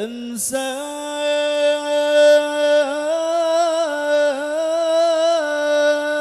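A male singer holding one long melismatic vowel of an Arabic sholawat, a single sustained note with small ornamental turns in pitch and a fall in pitch at the end, amplified through a large stage sound system.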